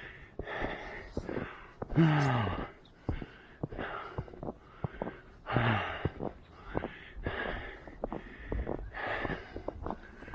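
A runner's heavy, rapid panting in and out, with two voiced groans that fall in pitch, about two seconds in and again near six seconds. Quick crunching footfalls in snow run underneath.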